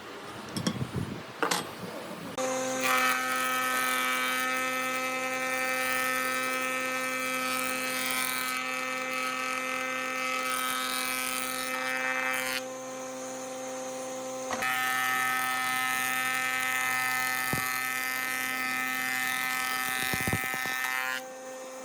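Small electric power-tool motor running with a steady whine after a few clicks. It eases to a lower, duller hum for about two seconds midway, then runs at full speed again until near the end.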